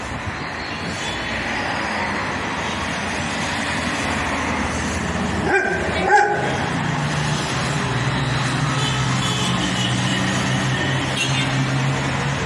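Two short barks from a dog about six seconds in, over steady street traffic noise, with a low engine hum joining after the barks.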